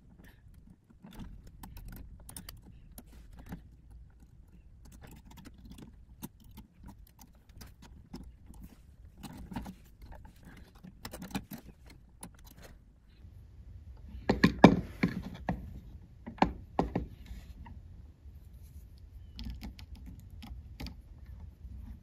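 Small metallic clicks and scrapes of needle-nose pliers working stiff copper wires, straightening them in a wall electrical box. A cluster of louder clicks comes about two-thirds of the way in.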